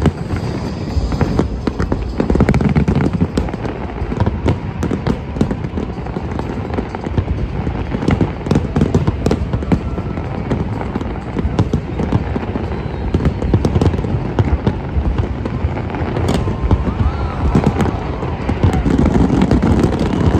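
Aerial fireworks bursting without a break: dense, overlapping booms and crackles.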